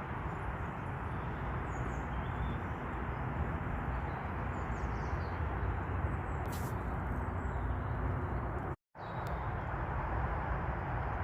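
Steady outdoor rushing noise, heavy in the lows, with a few faint bird chirps; the sound cuts out for a moment about nine seconds in.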